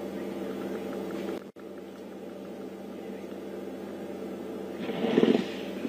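Steady electrical hum made of several evenly spaced tones, with the sound cutting out for an instant about a second and a half in. A short, louder burst of noise about five seconds in.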